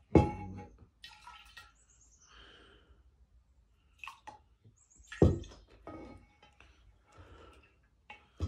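Juice and canned soda being poured into a drinking glass, with liquid splashing and dripping. Two sharp knocks, one just after the start and one about five seconds in, are the loudest sounds.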